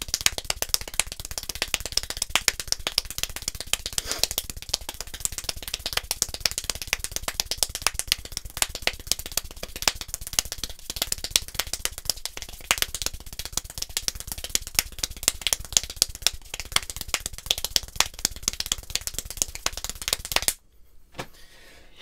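One person speed-clapping, the hands held crossed at an angle, at about sixteen claps a second, so fast that the claps run together into a continuous rattle. It stops abruptly about twenty seconds in, when the minute is up.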